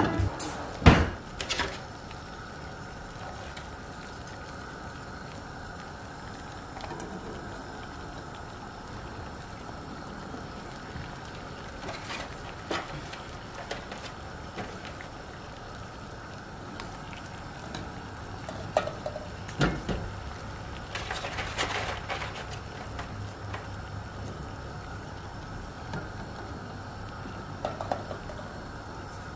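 Water at a rolling boil in a stainless steel pot on a gas stove, a steady bubbling hiss, broken by a few short knocks and clinks, the loudest about a second in.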